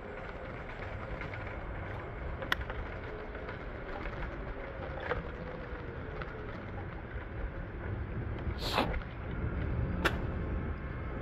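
Steady low vehicle rumble, with a couple of sharp clicks and a short hiss about nine seconds in.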